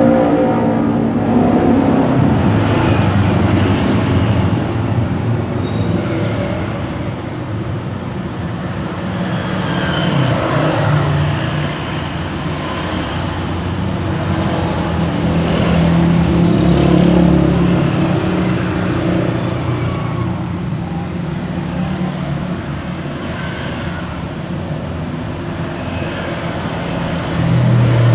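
Road traffic on a main road: cars driving past with a steady engine and tyre hum, swelling as vehicles go by, loudest about two-thirds of the way through and again near the end.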